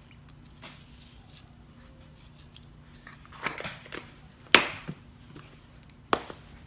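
Salt dispensed from a wooden salt container over a bowl of flour coating: a few short crunchy, gritty bursts, the loudest about four and a half seconds in, then a sharp knock about six seconds in as the container is set down on the stone counter.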